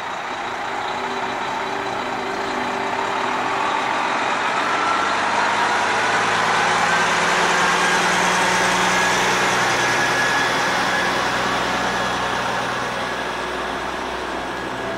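Heavy cab-over prime mover truck going slowly past: its diesel engine running and the tyres of its multi-axle low-loader trailer rolling on the road. It grows louder to a peak about halfway through and then fades as it moves away.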